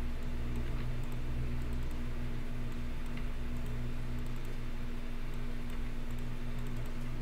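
Computer keyboard and mouse clicking in short, irregular clusters, faint over a steady low electrical hum.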